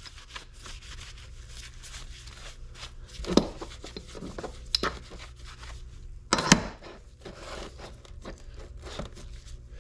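Handling noise from metal grinder dogs being moved: a few short knocks and clicks, the loudest about two thirds of the way through, over a steady low hum.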